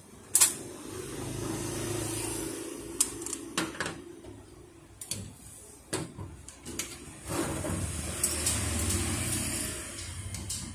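Scattered sharp clicks and knocks of metal and plastic parts as a photocopier fuser's oil-web unit, with its web roll and roller in a sheet-metal frame, is handled and fitted together by hand. Twice a low mechanical hum swells up over a few seconds and fades away behind the clicks.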